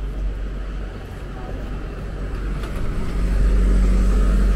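City street ambience: a steady background hum with a low rumble that swells louder about three seconds in.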